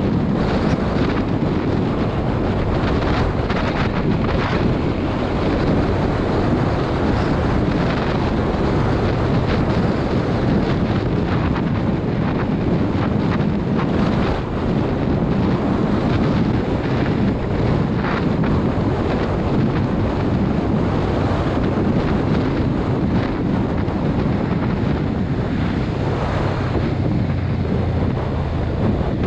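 Steady wind noise buffeting a helmet-mounted camera's microphone on a moving motorcycle, with the bike's engine and road noise underneath.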